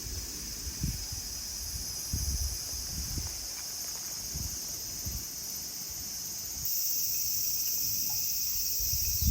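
Steady high-pitched chorus of chirring insects, which grows louder about two-thirds of the way through, over scattered low thumps.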